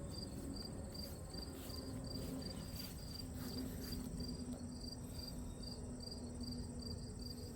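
Crickets chirping in an even rhythm, about two to three high chirps a second, over a continuous higher insect trill and a faint low steady hum.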